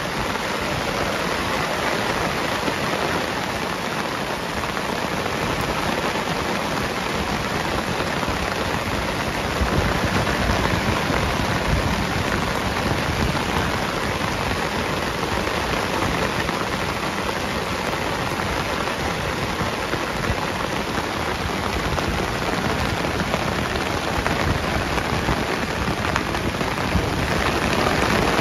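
Heavy rain pouring down steadily on grass, foliage and a track, a dense even hiss that swells a little about ten seconds in and again near the end.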